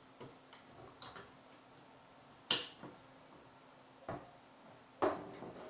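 Metal parts of a Ruger Mini-14 rifle clicking and clacking as it is reassembled by hand: light ticks in the first couple of seconds, a sharp metallic clack about two and a half seconds in, then a few more knocks near the end.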